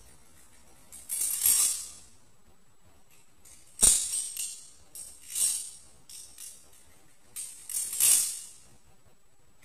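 Balisong (butterfly knife) being flipped: bursts of metallic clacking and jingling as the handles swing around the blade and snap together, five clusters a second or two apart. The sharpest, loudest snap comes about four seconds in.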